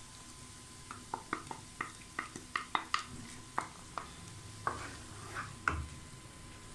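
Wooden spoon tapping and scraping against a pan as blended tomato is stirred into simmering onion paste: a dozen or so irregular sharp taps over a faint sizzle.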